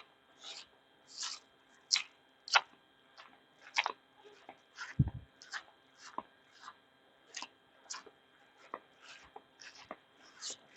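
Footsteps in flip-flops crunching along an overgrown trail, a short crunch roughly every half second, with one dull thump about five seconds in.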